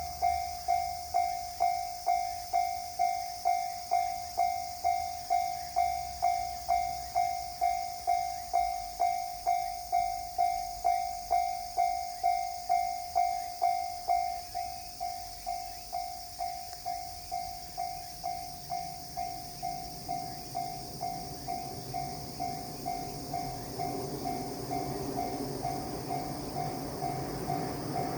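Japanese level-crossing warning bell ringing its electronic 'kan-kan' tone about twice a second, turning quieter about halfway through. An approaching train's rumble builds up under it near the end.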